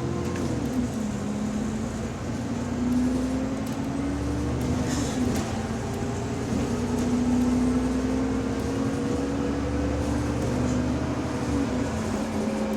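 Inside a moving bus: the engine and drivetrain running, with a whine that rises and falls slowly in pitch as the bus gains and loses speed. This is the subtle differential whine of this bus.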